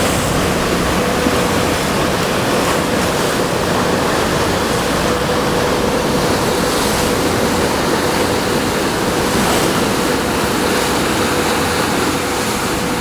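Steady rush of sea water and wind on a sport-fishing boat under way, with a faint steady hum underneath.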